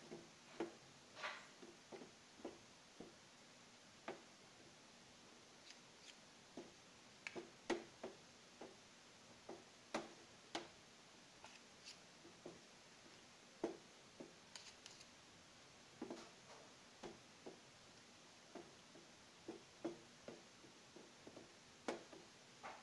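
Fork clicking and scraping against a plastic tub while stirring a thick mix of rice flour, flour and water. The clicks are light and irregular, about one every half-second to a second.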